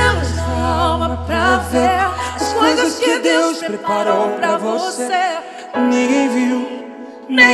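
Gospel duet sung live with vibrato over instrumental backing. The low bass notes stop about three seconds in, the music thins out and gets quieter near the end, then comes back in loud just before the end.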